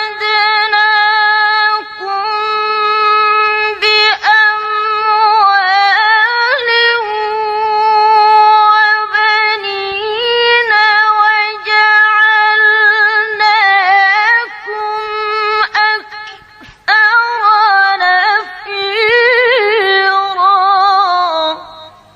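A woman's Quran recitation (tilawah) chanted in a high, drawn-out melismatic line: long held notes with quick wavering ornaments, broken by a few short pauses for breath, the line sinking and fading out near the end.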